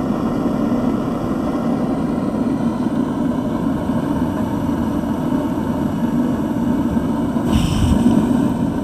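Handheld gas torch burning steadily, its flame blown into a small wood stove's firebox to light the wood. It briefly gets louder and brighter near the end.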